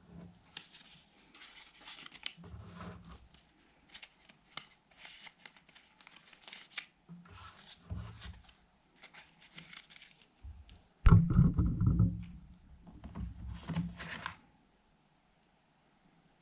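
Phone packaging being handled: a run of short crinkling and tearing rustles, with a louder bout of rustling and bumping about eleven seconds in.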